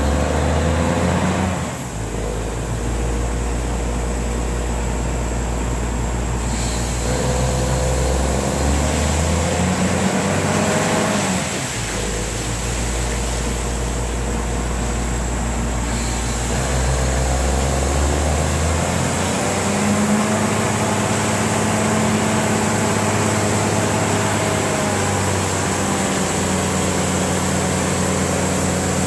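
Truck-mounted borewell drilling rig running while drilling an ODEX tube well, its engine and drilling machinery making a steady loud drone. The engine's note shifts in pitch and load several times.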